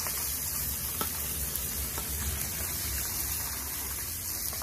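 Salmon frying in hot oil in an outdoor pan, a steady sizzle with a few faint pops, over a low rumble.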